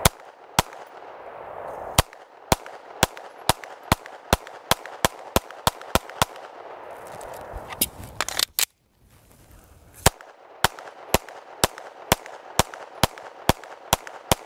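Kriss Sphinx SDP Compact 9mm pistol fired in rapid strings of about two shots a second, cycling shot after shot while still fouled with dried crud from a water test. A string of a dozen or more shots runs to about seven seconds in. A few handling clicks follow around eight seconds while the slide is locked back. A second, evenly paced string starts about ten seconds in.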